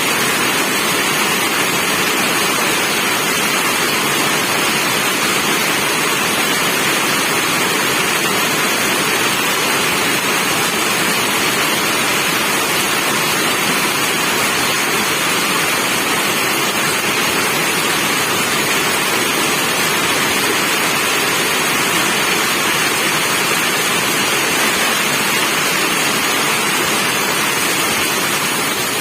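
Steady, heavy rain: a dense, even hiss of falling rain that doesn't let up.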